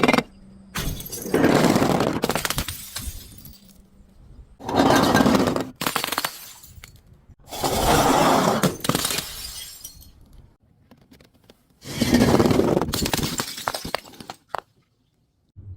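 Glass bottles breaking one after another: four loud shattering crashes, each fading out over a second or two, with a short crash at the very start.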